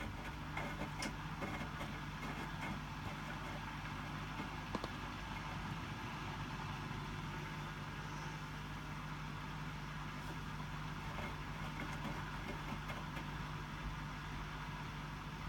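Hotpoint WMFUG 942 washing machine on its distribute drain before a spin: a steady hum from the drain pump and drum motor, with a few light clicks, the tub already nearly empty of water.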